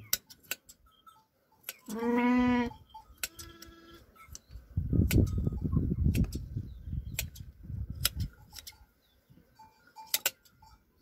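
A sheep bleats once loudly about two seconds in, followed by a fainter bleat, while hand shears cut its fleece with sharp scattered clicks. A low rumbling noise runs for a few seconds in the middle.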